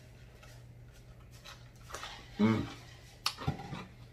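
A man drinking from a large jug, faint for the first two seconds. Then a short voiced sigh about two and a half seconds in, followed by a couple of wet lip smacks near the end.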